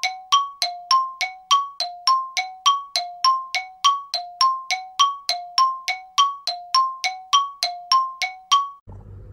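2018 Toyota Camry's dashboard warning chime dinging over and over, about three dings a second, until it cuts off suddenly near the end. The key is in the ignition, so this is most likely the key-left-in-ignition reminder.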